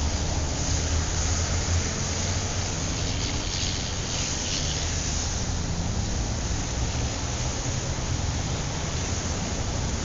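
City street traffic ambience: a steady low rumble of vehicle engines under a wash of road and tyre noise, with the hiss swelling briefly about four seconds in.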